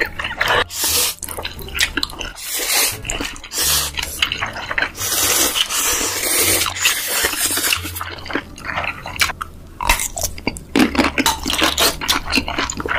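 Close-miked mukbang eating sounds: spicy noodles being slurped and chewed in quick wet bursts, with one long slurp around the middle.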